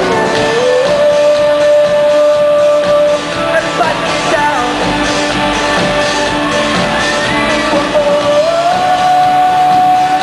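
Live rock band playing: a singer holds two long notes, the second higher, over electric guitars and drums, heard from within the audience.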